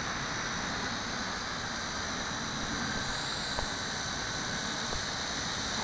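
Steady buzzing hum of a WLtoys V262 quadcopter's four motors and propellers as it flies slowly overhead at height, with a single small tick about halfway through.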